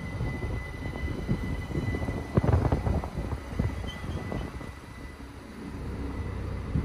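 ÖBB class 4024 Talent electric multiple unit rolling slowly into an occupied platform track: a steady low rumble with a thin steady whine that fades out, and a few knocks about two and a half seconds in.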